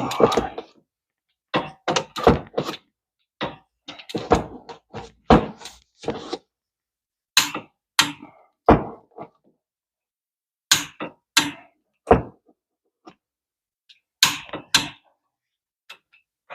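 Click-type torque wrench and socket on the hub assembly's mounting bolts, tightening them to 65. It gives sharp metallic clicks and knocks in about five short clusters, with pauses between them.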